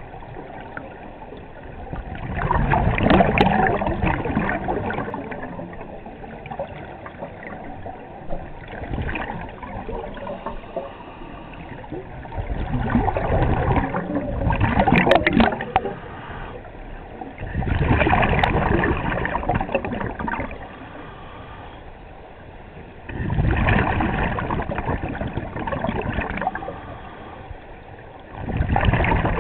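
Scuba regulator exhaust bubbles from a diver's breathing, heard underwater: a bubbling rush every five seconds or so, one per exhalation, with quieter stretches between.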